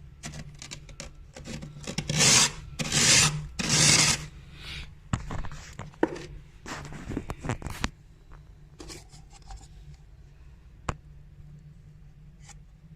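Crisp, crunchy scraping of freezer frost with the edge of a glass: a run of rasping strokes, three of them loud a couple of seconds in. After the middle it turns to quieter, scattered scrapes with the odd sharp click, over a low steady hum.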